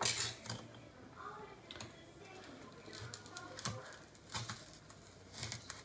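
Scattered faint light taps and clicks of raw fish pieces being handled and set down on a plastic plate, a few irregular ticks over a low steady hum.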